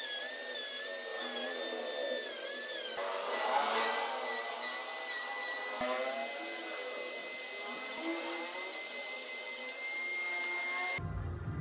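Handheld rotary tool with a small carving bit cutting a tyre-tread pattern into a wooden wheel: a high-pitched whine that wavers in pitch for the first few seconds as the bit bites, then holds steady, and cuts off about a second before the end.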